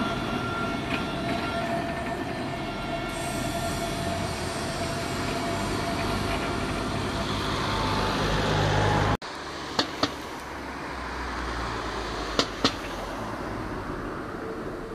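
Tram running past and pulling away, its traction motors giving a few faint steady whining tones over the rumble of steel wheels on rail. The sound cuts out for an instant about nine seconds in, then two pairs of sharp clicks come later as the tram rumbles on into the distance.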